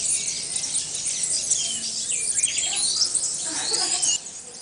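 Many small birds chirping and twittering at once in a dense, high-pitched chorus. The sound drops suddenly a little after four seconds in.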